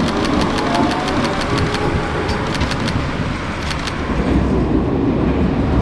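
Croydon tram moving off, a steady low rumble with a faint motor hum and a quick run of regular ticks. About four seconds in the ticks stop and only the low rumble of the running tram remains.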